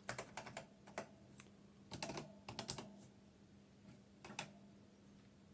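Keys being typed on a computer keyboard: scattered soft clicks in small clusters, with short pauses between them.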